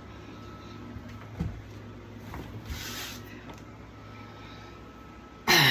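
Steady low hum of a room fan, with a faint knock about a second and a half in and a short breathy hiss around the middle. A loud voice sound cuts in right at the end.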